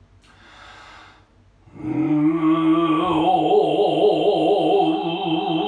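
Noh chanting (utai): after a short quiet gap, a voice comes in about two seconds in and holds a long drawn-out note with a slow, wide wavering vibrato.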